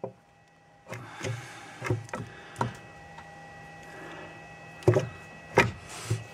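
Handling noise from working close to the engine: a few scattered light knocks and clicks, the loudest two about five seconds in, over a faint steady whine.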